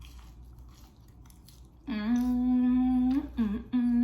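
A woman humming an appreciative "mmm" with her mouth full of food. The first hum starts about halfway through and holds one steady note for over a second; after a short dip, a second, shorter hum follows.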